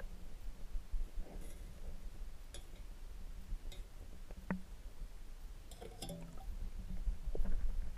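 Muffled underwater sound heard through a submerged camera: a constant low rumble of moving water, with scattered faint clicks and knocks as a wire crab rake is dragged through seagrass on a sandy bottom, one sharper knock about halfway through and a small cluster a little later.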